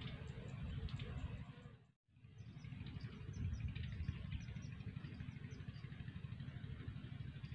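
Wind rumbling on the microphone outdoors, with faint short high chirps above it. The sound drops out briefly about two seconds in.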